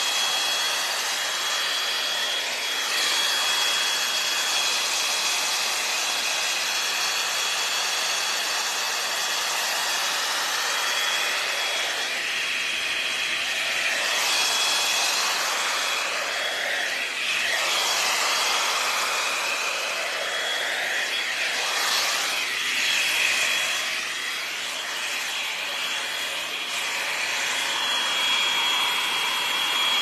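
L'ange Max Volume hot air brush running steadily: a rush of blown air with a thin, steady high whine, swelling and dipping a few times as the brush moves through the hair.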